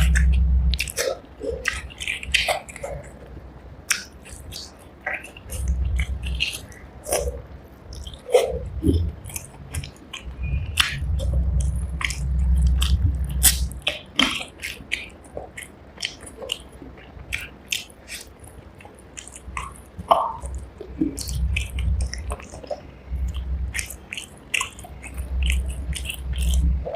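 Close-miked chewing and biting of a person eating rice with fish curry by hand, with many sharp mouth clicks and smacks and recurring low swells.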